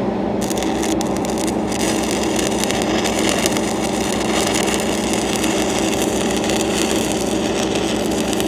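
Stick-welding arc crackling and hissing as a cellulose electrode (8010 rod) is struck on a 6-inch steel pipe joint about half a second in and run steadily along the bevel for the filler pass. A steady engine hum runs underneath.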